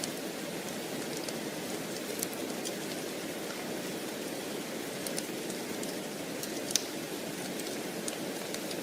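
Steady rain falling, an even hiss, with scattered sharp clicks over it, the loudest about two-thirds of the way in.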